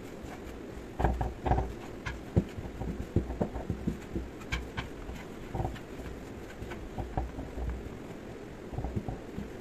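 Kitchen knife pressing and rocking through a thin sheet of rolled dough on a wooden board, making a string of irregular knocks and taps as the blade meets the wood.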